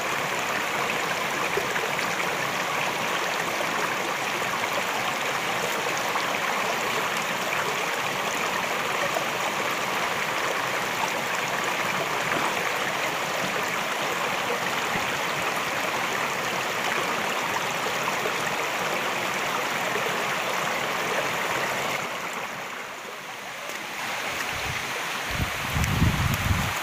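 Shallow rocky stream running over stones, a steady, even rush of water. It drops in level for a moment about 22 seconds in, and a few low thumps come near the end.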